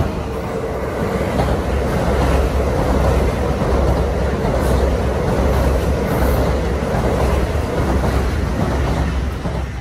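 Keio Line electric commuter train moving along the station platform at speed: a steady, loud rolling rumble of steel wheels on rails with a pulsing low drone, easing off right at the end.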